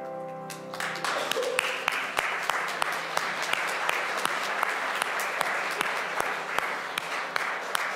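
Church congregation applauding, the clapping breaking out about a second in as the music's final held chord dies away.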